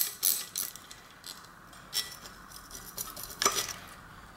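Small metallic clicks and clinks as a bicycle caliper brake is unbolted: a socket tool works on the brake's mounting nut, then the loose caliper, nut and washers knock together in the hand. There is a quick run of clicks at the start, a single click about 2 s in, and a cluster about 3.5 s in.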